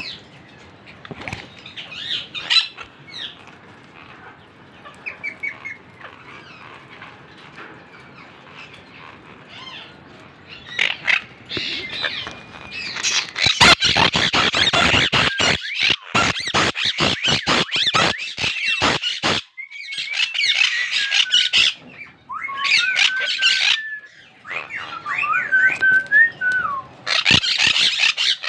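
A parakeet at its clay-pot nest, chirping and then, from about halfway, squawking harshly with sharp clicks, breaking into shorter whistled chirps that glide up and down before the harsh calls return near the end. These are the calls of an angry bird guarding its eggs and chick.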